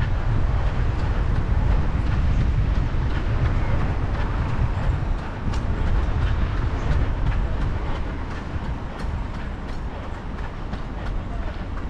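Steady low rumble and hiss of wind on the microphone of a camera carried while running, mixed with road traffic, easing a little about eight seconds in.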